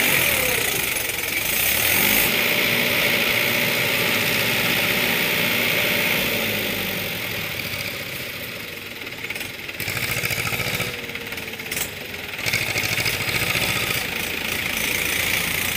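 Mahindra tractor's diesel engine pulling a trailer loaded with sand through soft ground, its note rising and falling several times as it is given throttle under load.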